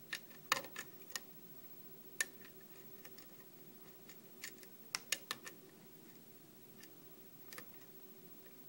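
Small, irregular metallic clicks of a lock-pick hook working the pins of a brass 5-pin Mallen cylinder held under a tension wrench, with the core in a false set; a quick run of clicks comes about five seconds in.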